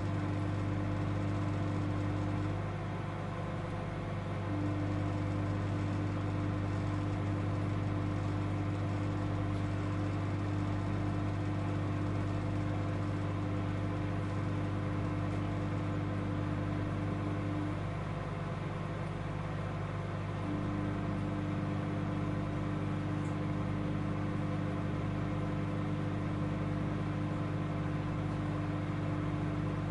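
Microwave oven running: a steady electrical hum that drops for a couple of seconds twice, about three seconds in and again at about eighteen seconds, then returns.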